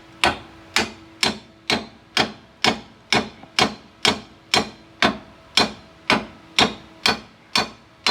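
Hammer blows struck from below on a car's front suspension during a lower-arm replacement. The blows come steadily, about two a second, each with a short metallic ring.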